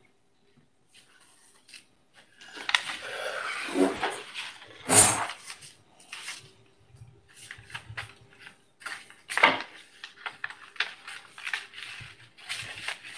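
Objects being handled and set down on a table in a small room: scattered clicks, knocks and rustling, with a sharp knock about five seconds in and another near nine and a half. A faint steady hum joins about six seconds in.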